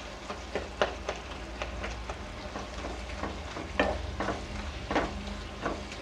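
Spatula stirring and scraping chopped tomatoes and cashews as they sauté in a nonstick kadhai: irregular scrapes and taps against the pan, a few louder knocks, over a low sizzle. The tomatoes are frying in their own released juice until soft.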